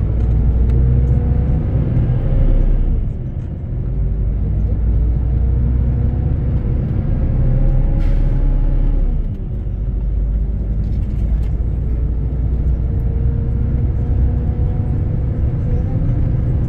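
Volvo B12R bus's rear-mounted diesel engine pulling under load, heard inside the moving double-decker: a low drone with a higher whine. The whine climbs, then drops back with a brief dip in loudness twice, about three and nine seconds in, as the bus shifts up through the gears.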